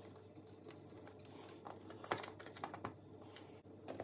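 A hand screwdriver turning the claw screws of a plastic drywall electrical box, making faint irregular clicks and light scraping as the claws tighten behind the plasterboard.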